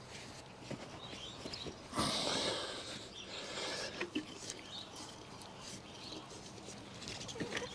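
Quiet handling noises of a motorcycle fork part being cleaned up: scattered light clicks and knocks, with a brief rustle about two seconds in.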